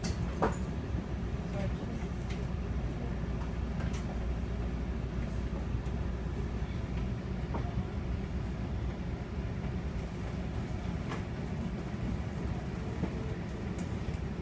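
Steady low hum and rumble inside an electric commuter train car standing still, with a few faint clicks.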